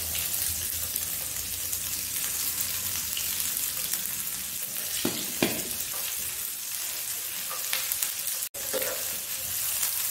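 Sliced onions sizzling in hot oil in a frying pan, stirred with a steel ladle, with two sharp knocks about five seconds in. The sound cuts out for an instant about eight and a half seconds in.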